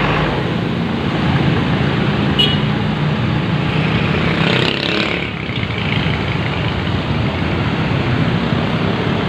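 Diesel engine of a large intercity coach running as the coach rolls slowly past at close range, a steady low hum with traffic noise around it. A short, high squeak comes about two and a half seconds in.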